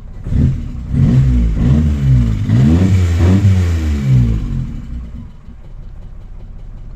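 Daihatsu Charade engine revved in a series of quick throttle blips, its pitch rising and falling several times, then dropping back to a steady idle about five seconds in.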